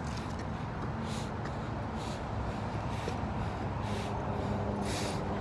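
Steady low rumble of street traffic, with soft hissy scuffs about once a second and a faint engine hum coming in about four seconds in.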